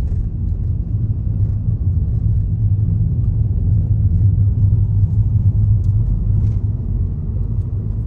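Car on the move, heard from inside the cabin: a steady low rumble of road and engine noise.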